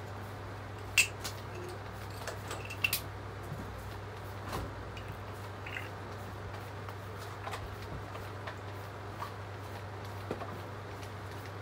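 Quiet indoor room tone: a steady low hum with scattered light clicks and taps, the sharpest about a second in and a small cluster near three seconds.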